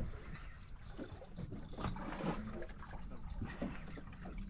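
Water and wind noise around a small boat on open water: a steady low rumble with a few faint knocks.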